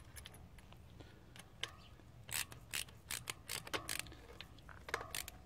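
Ratchet wrench clicking in short, irregular runs as it turns the axle nut of an eBike front hub motor, tightening it down over the torque arm.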